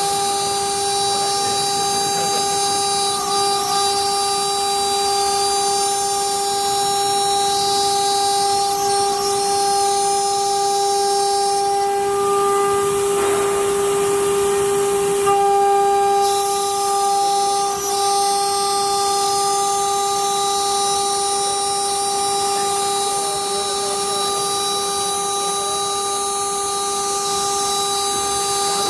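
HITEC HTM1325LC CNC router's high-speed spindle milling an aluminium sheet: a steady, high-pitched whine over a hiss of cutting, shifting slightly in tone about halfway through.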